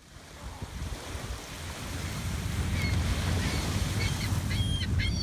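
Ocean surf and wind rumbling on the microphone, fading in at the start and growing louder. High, short bird calls join from about three seconds in.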